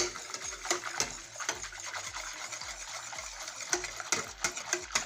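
Hand whisk beating yogurt and milk in a bowl: the wires tick against the bowl and the liquid swishes in a quick, even rhythm, about two to three strokes a second, as the mixture is whipped to a froth.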